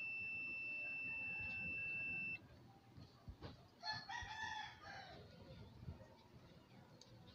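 Multimeter continuity buzzer sounding one steady high beep for about two and a half seconds with its probes across a part on a CRT TV's circuit board, then cutting off sharply; the beep signals a short, here the shorted horizontal output transistor. About four seconds in, a short animal call is heard.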